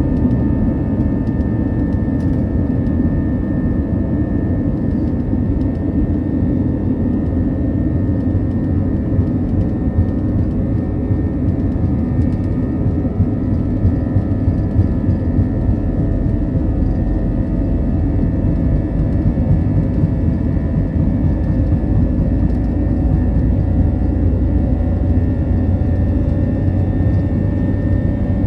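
Steady rumble of an Airbus A321-200's jet engines and airflow heard from inside the passenger cabin, with faint steady whining tones above it.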